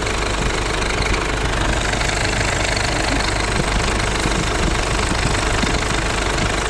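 2009 Ford Everest engine idling steadily with the air-conditioning compressor engaged, giving a constant mechanical noise. The noise comes with the compressor switched on, and the mechanic traces it to the compressor's magnetic clutch.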